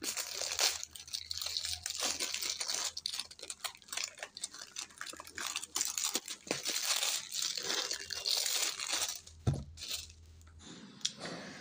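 Clear plastic shrink wrap being pulled off an eyeshadow palette box by hand, crinkling and crackling steadily, then dying down in the last second or so.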